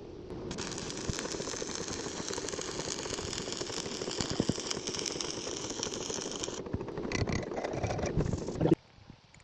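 Welding arc crackling steadily, a dense sizzle of fine pops, stopping suddenly near the end as the arc is broken.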